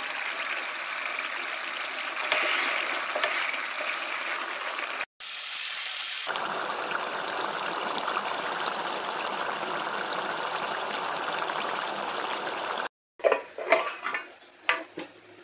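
Duck curry cooking in a pot, a steady sizzling and bubbling hiss. Near the end, several sharp metal clinks of a steel ladle against the pot and a steel bowl.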